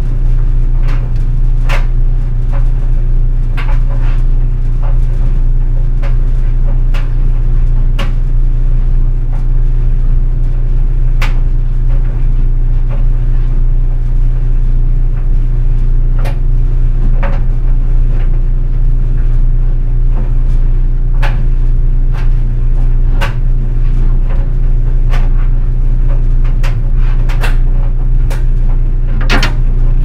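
GE Spacemaker DSKS333E clothes dryer running with a steady low hum as its drum tumbles a load of jeans and towels. Irregular sharp clicks and scrapes come every second or two as the jeans' metal button and zipper strike the drum.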